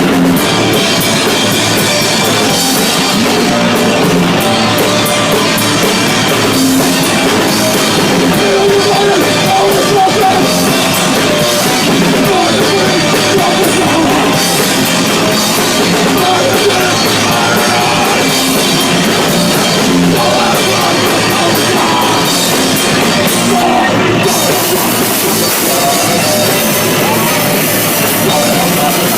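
Punk rock band playing live: fast, loud guitar and drum kit with no break.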